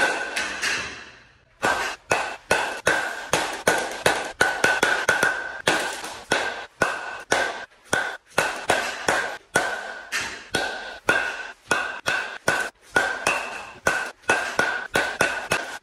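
Baseballs hit off a tee with a new Marucci CATX composite bat as it is broken in: sharp hits in quick succession, about two to three a second, each with a ringing ping. A single hit comes at the start, then a short pause before the run of hits begins.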